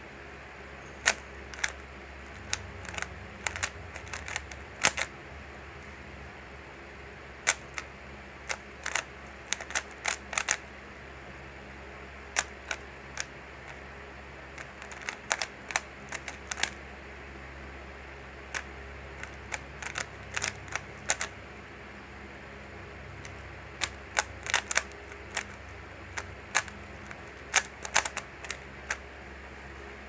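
A 3x3 Rubik's Cube being turned by hand during a solve: quick bursts of sharp plastic clicks as the layers snap round, broken by short pauses, over a steady low hum.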